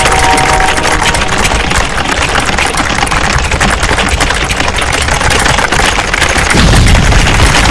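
Many computer keyboards clattering at once, a dense unbroken stream of key clicks, over a low rumble that swells near the end.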